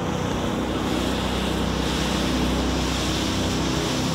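Jet boat's engine running steadily while under way, a low hum of several steady tones under a rush of wind noise.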